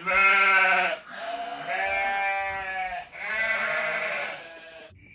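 Three drawn-out animal calls in a row, each one to two seconds long at a steady pitch, the first the loudest.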